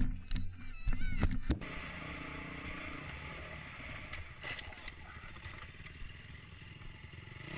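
Dirt-bike engine and wind noise on a helmet camera: a steady, fairly quiet rumble and hiss that begins abruptly about a second and a half in. Before that come a few short knocks and some rising-and-falling tones.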